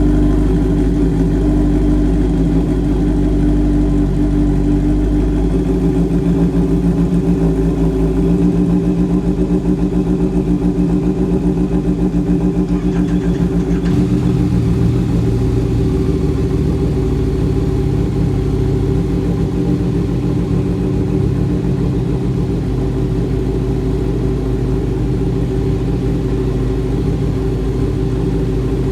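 Motorcycle engine idling steadily just after being started, with the idle note shifting slightly about halfway through.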